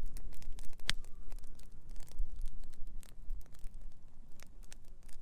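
Wood campfire crackling, with irregular snaps and pops and one sharp pop about a second in, over a low steady rumble.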